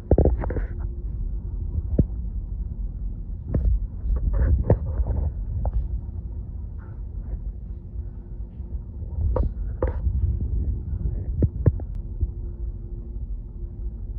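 Background noise aboard a cruise ship: a steady low rumble with a constant hum, broken by scattered knocks and thumps.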